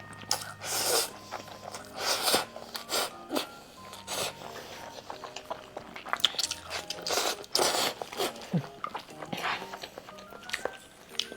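Close-miked eating sounds: wet chewing and mouth clicks, with several louder noisy bursts every couple of seconds, over soft background music.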